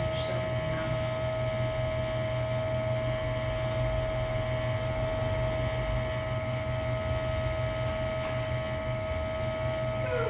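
A steady, unchanging hum: one strong constant mid-pitched tone over several fainter tones and a low rumble with hiss, the strange noise the recording was made to catch.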